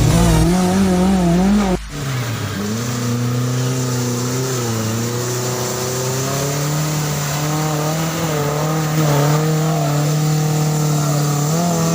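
Off-road vehicle's engine running under throttle at fairly steady revs, the pitch rising and falling slightly, after an abrupt cut about two seconds in.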